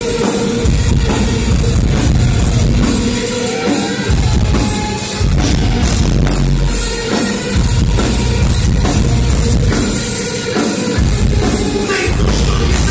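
Live rock band playing loud: electric guitars over a pounding drum kit. The heavy low end drops away briefly a few times between sections.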